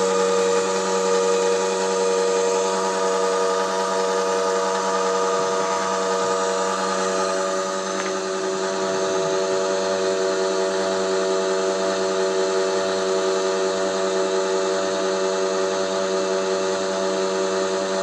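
Electric screw oil press running steadily while it presses nigella (kalonji) seeds, giving a constant motor hum and whine made of several fixed tones.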